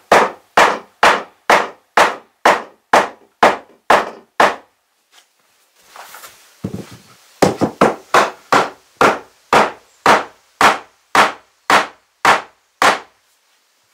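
Hammer blows on wooden floorboards, steady at about two a second. They stop about four and a half seconds in, a board scrapes briefly, and then a second run of about a dozen blows follows.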